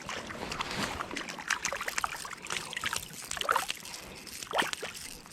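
Water trickling and sloshing with many small, uneven splashes and clicks, the sound of a small fish being handled at the water's edge.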